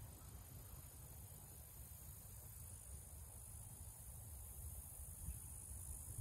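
Faint outdoor ambience: a steady high insect hum, with a low unsteady rumble underneath.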